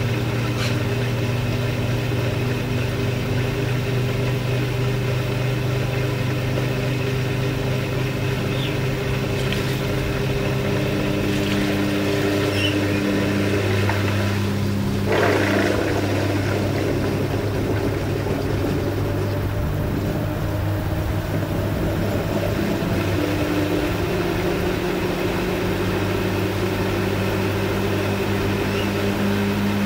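Washing machine running: a steady motor hum whose pitch shifts a few times, with a brief swish about halfway through.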